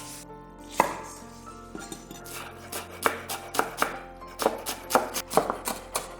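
Kitchen knife chopping vegetables on a cutting board. There is one chop about a second in, then a run of quick, even chops at about three to four a second. Soft background music plays underneath.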